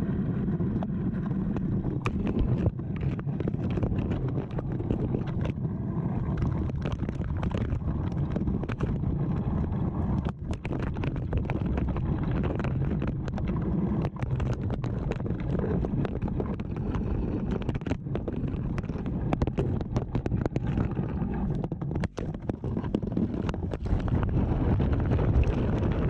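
GoPro camera held by its magnet mount on a tine of a fixed-tine harrow and dragged through the soil: continuous scraping and low rumble, with many sharp knocks and clatters as earth and clods hit the camera.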